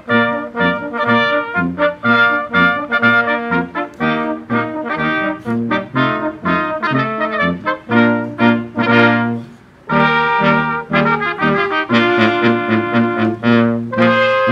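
Brass quintet of trumpets, trombone and tuba playing a lively piece in quick, short notes, breaking off briefly about ten seconds in and going on with longer held chords.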